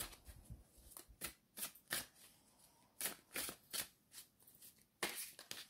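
A deck of tarot cards being shuffled and handled by hand: faint, short card flicks and riffles coming in irregular bursts.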